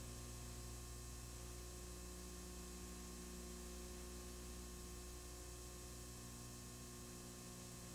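Faint steady electrical hum with a low hiss, and no other sound.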